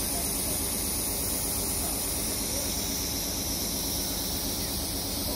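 Steady low hum of an idling engine with a fast, even pulse under a constant hiss, unchanging throughout.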